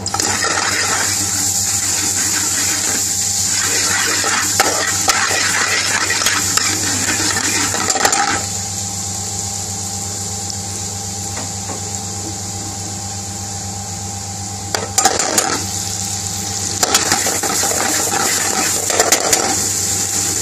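A spoon stirring garlic and ginger paste frying in oil in a pan, scraping and clinking against the pan, over a steady hiss and low hum. The stirring pauses for several seconds in the middle, then starts again.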